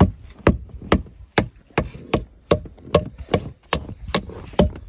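Axe chopping wood in quick, even strokes, about two and a half sharp chops a second.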